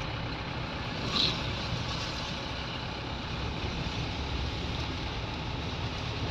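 Steady running noise of a vehicle heard from inside the cab: a low engine rumble with tyre noise on a wet road, and one short sharp sound about a second in.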